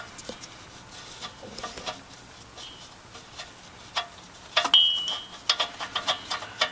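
Small metallic clicks, taps and light scraping as a new oxygen sensor is threaded by hand into the exhaust pipe's sensor port, with a couple of brief high squeaks about two thirds of the way through.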